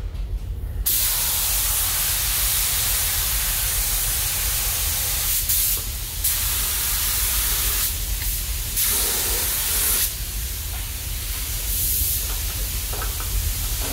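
Gravity-feed compressed-air paint spray gun hissing steadily, starting about a second in, as black paint is sprayed onto a camper van's body for its finishing coat.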